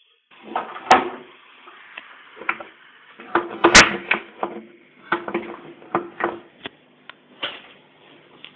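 Camera handling noise: fingers rubbing and knocking on the camera body next to its microphone, an irregular run of clicks and thumps with two sharp cracks, one about a second in and one near four seconds.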